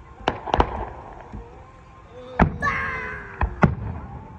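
Aerial fireworks going off: about six sharp bangs, two close together near the start, one about halfway, and two more in quick succession near the end.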